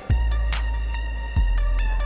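Background music: a hip hop beat with a heavy bass line and a regular kick and hi-hat pattern.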